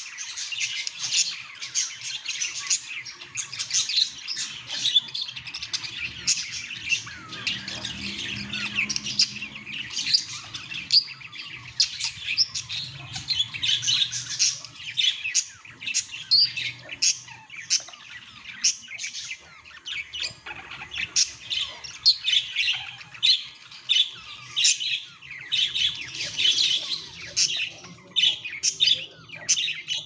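Male budgerigar chattering in a rapid, unbroken stream of short high chirps, squawks and warbles.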